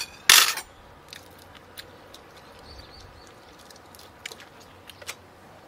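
Table noises of a seafood meal: the shell of a cooked shrimp being peeled off by hand, scattered small clicks of utensils and shells, and chewing. One loud short burst of noise comes just after the start.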